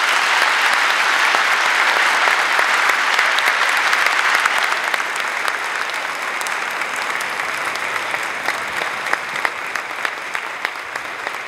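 Large audience applauding: dense, sustained clapping that thins out gradually after about four or five seconds, with single claps standing out near the end.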